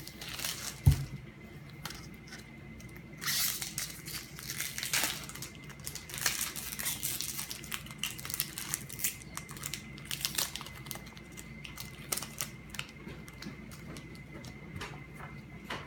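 Foil Pokémon booster pack being torn open and crinkled by hand, in irregular crackling bursts with small clicks, after a single thump about a second in. A faint steady high tone sits underneath.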